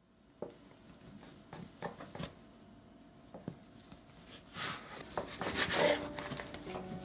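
Plastic bench scraper cutting through a ball of bagel dough and pressing on a wooden tabletop: a few light taps, then a couple of seconds of scraping and rubbing against the wood past the middle.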